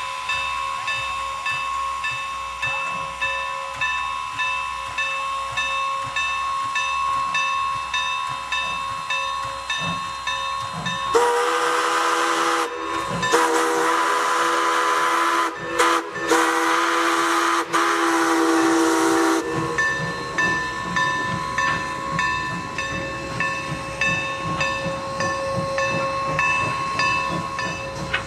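Steam locomotive No. 475, a 4-8-0, working past with a passenger train, its exhaust beating steadily. About eleven seconds in, its steam whistle sounds a chord of several notes in four blasts, long, long, short, long: the grade-crossing signal. After that the exhaust beat and the passing coaches carry on.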